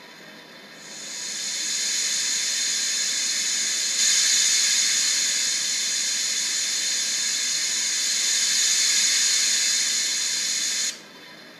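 An HO scale steam locomotive's digital sound decoder is playing a steam hiss. The hiss builds up over about a second, gets louder about four seconds in, then cuts off suddenly near the end.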